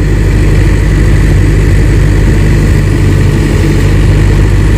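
Kobelco hydraulic excavator's diesel engine running steadily at idle, a low, even drone.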